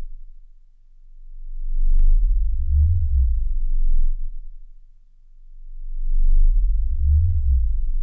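Low, deep droning tones of a sound-art piece, swelling up and fading away in two slow waves.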